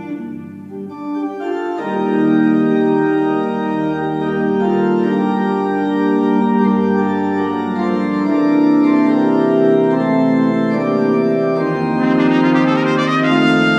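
Organ playing sustained, slowly changing chords as an interlude; near the end a trumpet comes in over it.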